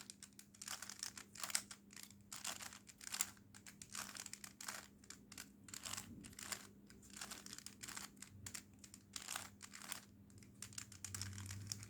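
Plastic 3x3 Rubik's cube being turned face after face as a move sequence is repeated: a long run of faint, quick clicks and rattles, a few a second.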